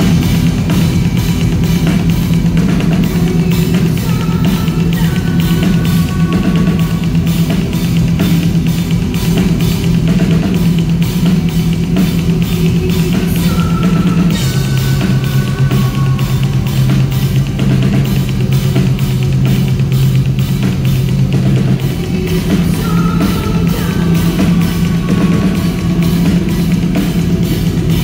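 Metal band playing live at high volume: a fast, steady kick drum with snare and cymbals over a heavy, sustained low bass-and-guitar note that drops lower about halfway through.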